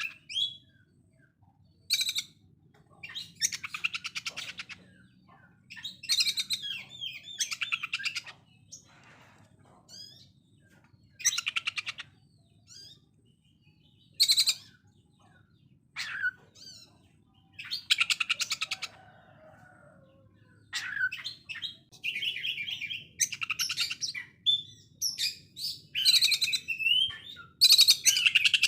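Oriental magpie-robin singing in harsh, very rapid rattling bursts like a sewing machine, each a second or so long, repeated many times with short whistled notes between them.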